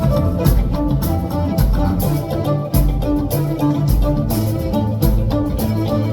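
Live rock band playing an instrumental passage: guitar and bass over a steady drum beat, with no singing.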